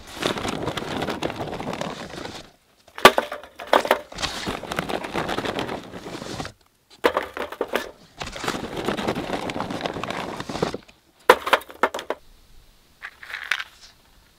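Dry kindling twigs and charcoal crunching and crackling as they are handled in a steel fire box, in three long stretches with sharp snaps and clicks between them.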